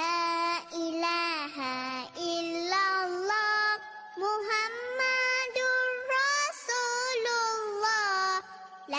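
Background vocal music: a high voice sings a melodic chant in long held notes that bend between pitches.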